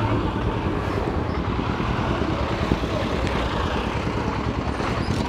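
A vehicle's engine and road noise, running steadily while driving along a rough road.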